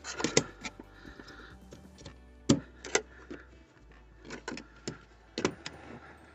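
Scattered sharp plastic and metal clicks and knocks, about half a dozen, as a fuel pump module is handled and worked into the fuel tank's opening.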